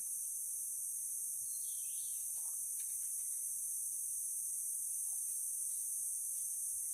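A dense chorus of insects such as crickets, a steady high-pitched shrill drone, with a few faint brief chirps.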